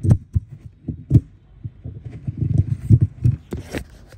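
Handling noise from a phone being picked up and set down: a run of dull low thumps and rubbing against its microphone, with a sharp click about three and a half seconds in.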